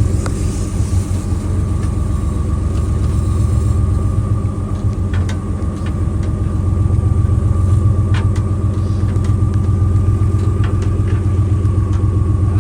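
A boat engine running steadily: a loud low rumble with an even throb and a thin steady whine above it.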